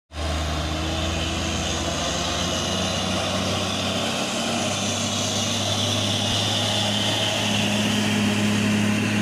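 Heavy diesel truck engine labouring at low revs under load up a steep grade: a steady low drone that grows a little louder near the end as the truck draws close.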